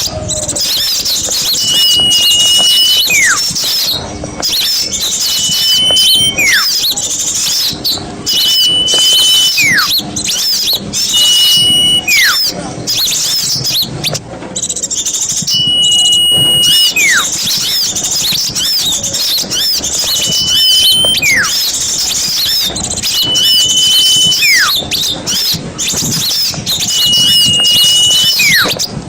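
Recording of small songbirds singing together in dense, high twittering. About every three to four seconds one clear whistle holds a steady note, then slides sharply down in pitch.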